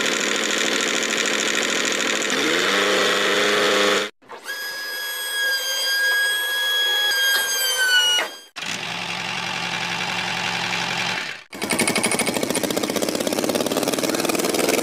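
Small motor of a homemade model tractor running with a dense buzz, in several clips joined by abrupt cuts. In the middle a steady high whine holds, then drops in pitch and stops about eight seconds in, as the trailer load is tipped out.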